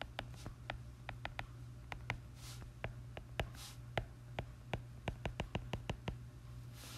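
A stylus writing on a tablet's glass screen: a rapid, irregular run of sharp taps with a few short scratching strokes, over a low steady hum.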